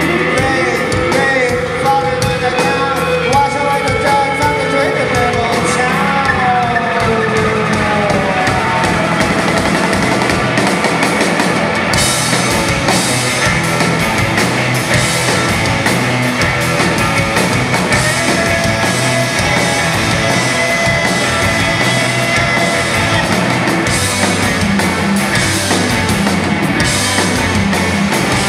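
Live rock band playing: a male lead vocal over electric guitar and drums for the first several seconds, then an instrumental stretch of electric guitar, bass and drums with crashing cymbals.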